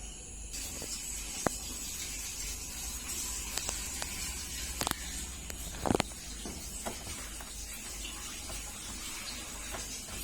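IFB front-loading washing machine running near the end of its cycle: a steady hiss over a low hum, with a few sharp clicks and knocks, the loudest about six seconds in.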